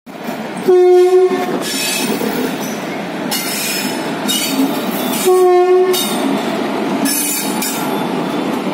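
Electric locomotive horn of a passing Indian Railways express, WAP-4 class, sounding two short steady blasts about four and a half seconds apart, over the running noise of the train's wheels on the rails as it departs.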